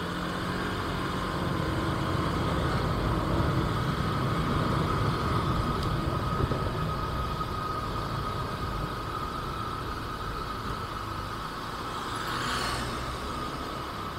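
Motorcycle engine running on the move, with wind and road noise; the engine picks up over the first few seconds, then settles and eases off. A brief rushing swell comes about twelve seconds in.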